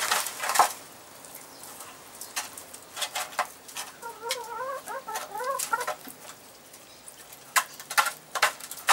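Hens pecking at food in a small tray trough, their beaks tapping sharply and irregularly. One hen gives a wavering, warbling call for about two seconds in the middle.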